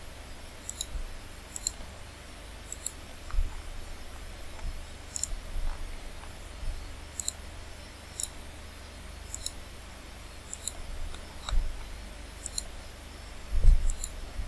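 Computer mouse buttons clicking about a dozen times, roughly once a second, each click a short high tick, over a low steady hum. A louder low thump comes near the end.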